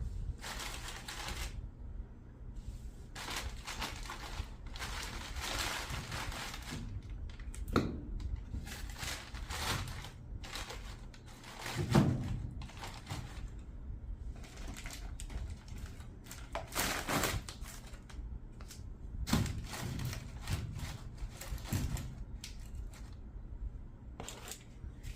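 Fire being built or tended in a home fireplace: irregular dry crackling and rustling, with a few knocks and a louder dull thud about twelve seconds in, as of wood being handled.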